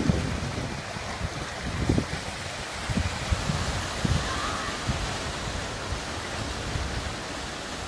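Ocean surf breaking and washing on a beach, a steady rushing noise, with wind buffeting the microphone in irregular low thumps.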